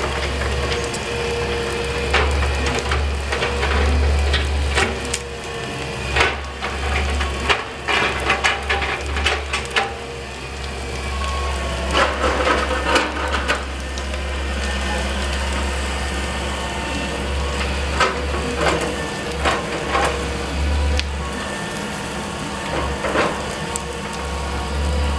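Wood cracking and splintering in many sharp snaps as a tree is taken down, over the steady low drone of a running engine. The drone drops out briefly near the end.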